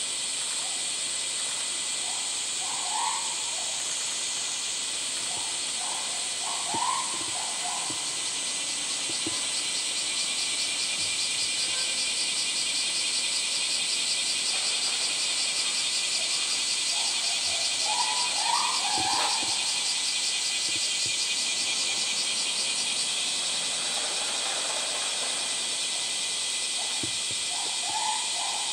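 Steady chorus of summer cicadas, a shrill hiss with a pulsing texture that swells slightly midway, with a few short, fainter sounds now and then.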